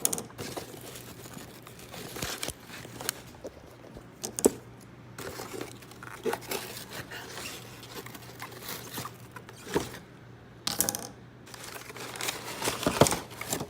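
Packaging being handled and opened by hand: irregular short rustles, scrapes and clicks.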